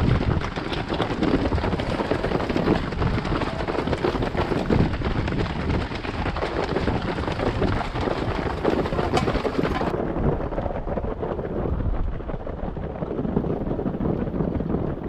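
Wind buffeting a small action-camera microphone carried by a runner mid-race: a steady, rumbling rush of noise with no speech. About ten seconds in, the hiss abruptly turns duller.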